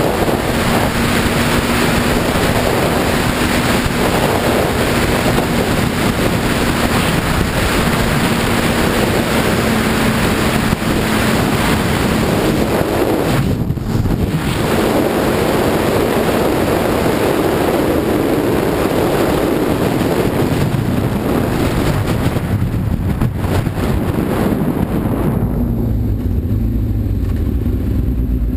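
Heavy wind rush over the microphone from a Suzuki GSX-R sportbike at speed, with a steady engine drone underneath. About 26 seconds in, the wind noise falls away and the engine's low running comes through as the bike slows.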